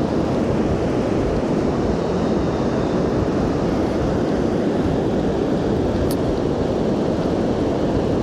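Steady wind noise buffeting the microphone over the constant wash of breaking surf, with a single short tick about six seconds in.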